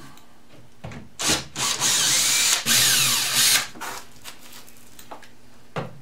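Cordless drill-driver backing screws out of a hardboard back panel: a couple of short blips about a second in, then two longer runs of the motor whine with the pitch sliding as it speeds and slows, stopping about three and a half seconds in.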